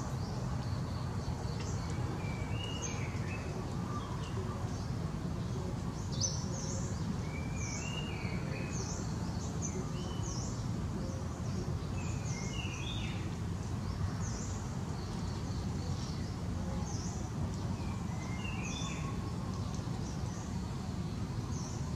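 Small birds chirping, short high notes and brief falling whistles coming in little clusters every few seconds, over a steady low background rumble.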